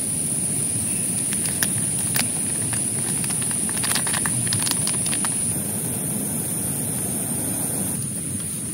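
Heavy rain falling steadily on a tent, with a scatter of sharp taps from drops about two to five seconds in. A thin, steady high hiss sits above the rain.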